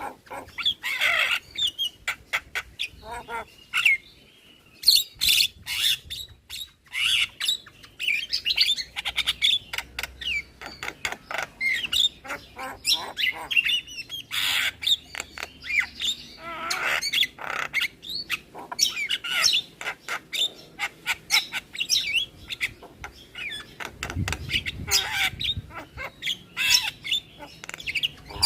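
Javan mynas (jalak kebo) singing a varied chattering song: a rapid, unbroken string of harsh squawks, sharp clicks and short whistles.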